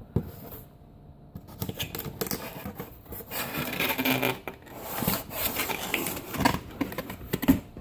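Paper and cardboard packaging being handled and rubbed while a laptop box is emptied: irregular rustling and scraping with many small clicks, starting about a second and a half in.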